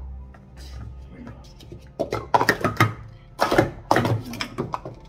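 Speed Stacks plastic cups clacking against each other and the mat as they are stacked up and down at speed: a dense run of sharp clicks starting about two seconds in and lasting a couple of seconds.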